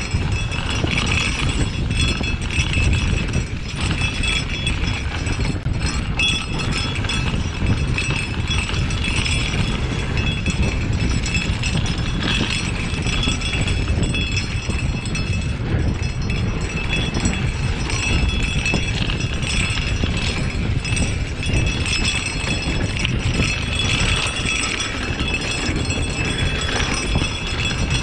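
A mountain bike ridden fast down a dry, dusty dirt singletrack: a continuous rumble of tyres over loose dirt and wind across the bar-mounted camera, with the bike's chain and parts rattling and clinking over the bumps.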